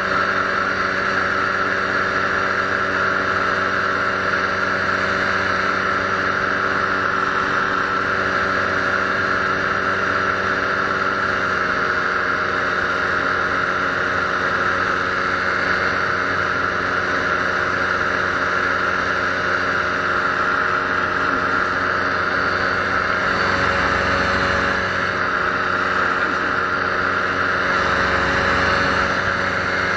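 Paramotor engine and propeller droning steadily at cruise power in flight. Wind buffets the microphone twice near the end.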